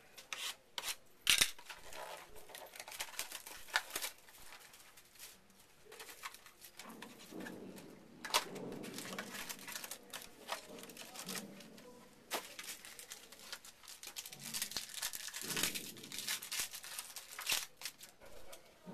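A mini box of 2014 Topps Finest Football cards being opened and its packs torn open: crinkling and tearing of pack wrappers with many sharp clicks and taps of handled cardboard, thicker rustling in two stretches in the middle and later on.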